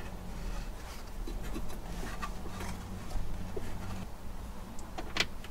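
Handling noise of a heavy battery cable being fed through the floor and of carpet being held back: light rustles and small scrapes, with one sharp click about five seconds in, over a steady low hum.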